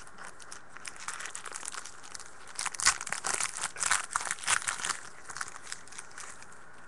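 A trading card pack's wrapper being torn open and crinkled by hand, a run of crackling and tearing that is loudest in the middle.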